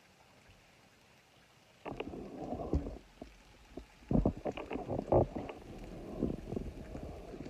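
Faint and steady for about two seconds, then irregular knocks, clicks and low rumbling bumps as the camera is picked up and moved around.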